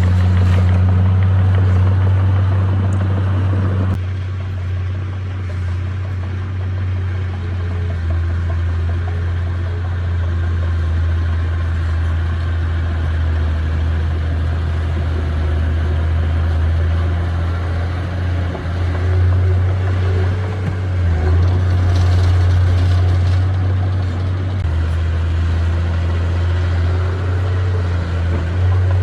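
Bulldozer's heavy diesel engine running steadily with a deep, even drone, easing slightly about four seconds in and building again past the middle.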